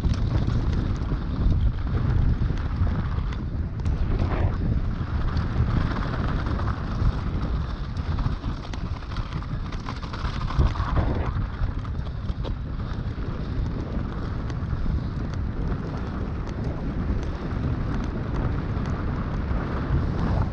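Mountain bike descending fast over dirt and loose gravel. The tyres rumble and crunch on the ground, with scattered knocks from the trail, and wind buffets the camera microphone throughout.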